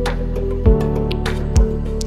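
Background music: sustained tones over a steady, even beat of low kick-drum thumps with light ticks.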